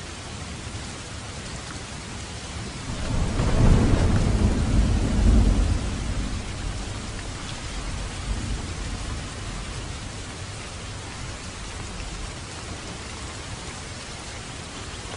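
Steady rain falling, with a roll of thunder that swells about three seconds in, peaks and rumbles away over the next few seconds.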